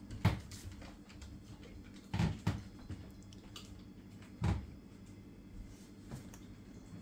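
A few dull knocks a second or two apart over a low steady hum.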